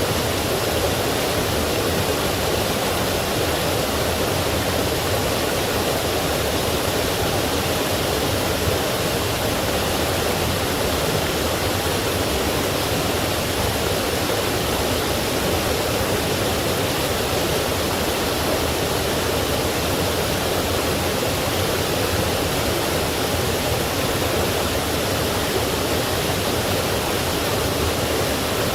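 Forest stream flowing, a steady, unbroken rush of water.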